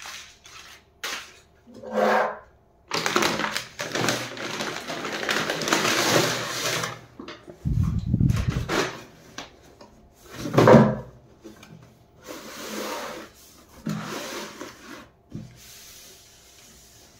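A paper courier bag rustling as it is pulled open, then a cardboard shoebox sliding out and set down with a dull thump on a wooden table. After that, hands knock and rub against the box.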